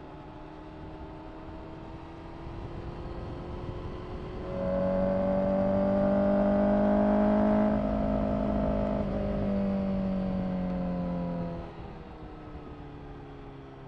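Inline-four engine of a 2024 Honda CBR1000RR-R SP Fireblade through an Akrapovic exhaust, the engine note climbing slowly. About four and a half seconds in it turns much louder as the throttle opens and holds for about seven seconds. It then drops back abruptly, the pitch falling as the engine comes off the throttle.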